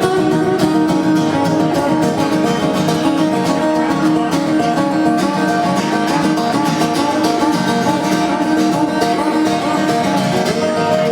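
Acoustic guitar music played live: strummed and picked guitar in an instrumental passage, with no singing.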